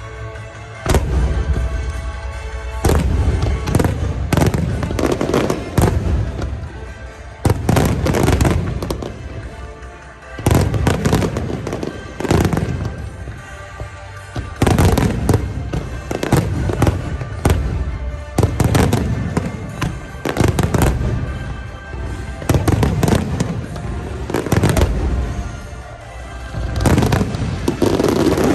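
Aerial firework shells bursting in quick succession, a boom every second or two with crackle after many of them, over music.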